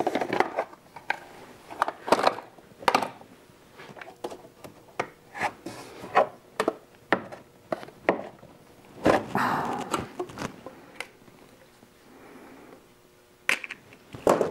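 Hand tools and plastic engine-bay parts clicking, knocking and scraping as Torx screws are backed out and a plastic piece is worked loose. Irregular sharp clicks, with a longer scraping rub about nine seconds in.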